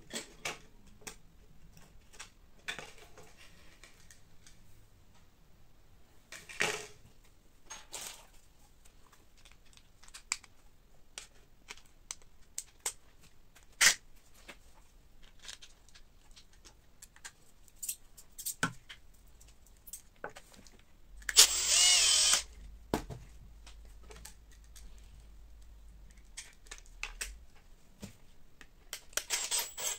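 Small hardware and hand tools clicking and knocking on a wooden workbench as screws and nuts are fitted into a 3D-printed plastic magazine. A cordless drill-driver whirs for about a second a little past two-thirds of the way through, and again briefly near the end.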